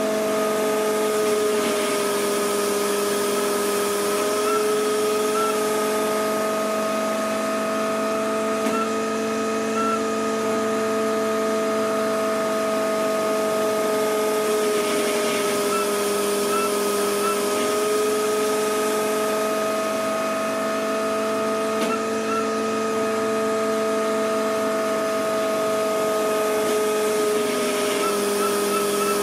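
Hydraulic power unit on a valve test bench running with a steady whine, its pitch dipping slightly and recovering a few times as the load changes.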